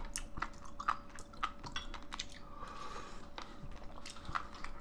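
Mouth-close eating sounds: chewing, with many small sharp clicks of metal chopsticks against a bowl.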